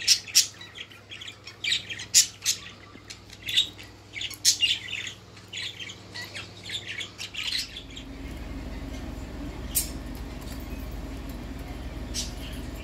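Kakariki parakeet calling: a quick run of short, sharp squawks and chirps for about seven seconds, then only two single chirps over a steady low hum.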